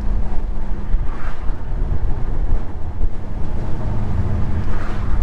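Infiniti G37's V6 engine and road noise heard from inside the cabin at a steady cruise: a low rumble with a constant drone.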